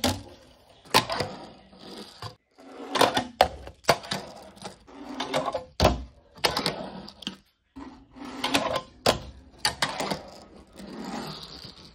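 Fingerboard tricks on a Tech Deck display set: small wheels rolling over the ramps and rails, broken by a dozen or so sharp clacks as the board pops and lands.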